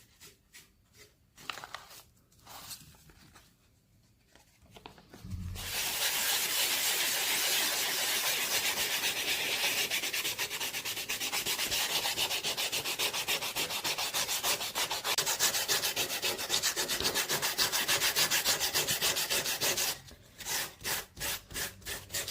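Sandpaper wet sanding the filler-coated surface of a 3D-printed glass-fibre nylon mold. A few scattered strokes come first, then from about five seconds in a fast, steady back-and-forth rubbing, which slows to separate strokes near the end.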